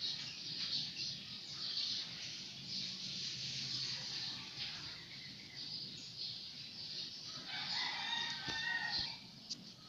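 A rooster crowing once, near the end, with small birds chirping throughout.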